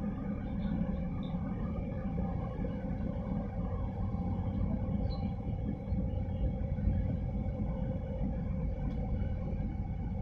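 A large container ship passing close by: a steady low rumble from its engines with a hum of several steady tones from its machinery over it.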